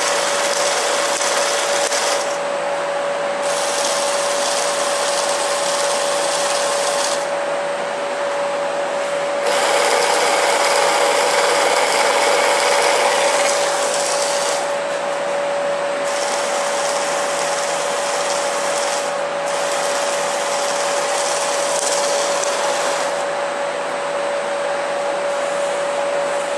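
Electric chainsaw driving the chain round a long 'Medieval'-style Evil Dead replica bar, running steadily with a constant motor whine. Its higher hiss fades and comes back several times, and it is loudest around ten to thirteen seconds in.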